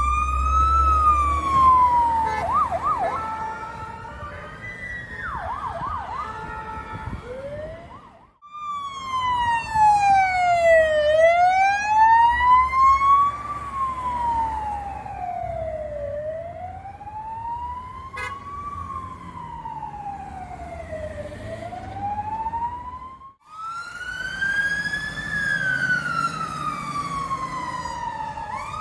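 Fire and rescue trucks' sirens wailing, the pitch sliding slowly up and down, a full rise and fall about every five seconds, with a second siren warbling quickly a few seconds in. A heavy diesel truck engine rumbles under it at the start, and the sound breaks off suddenly twice.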